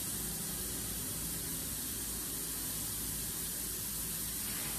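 Steady, even background hiss with a faint low hum underneath; no distinct sounds stand out.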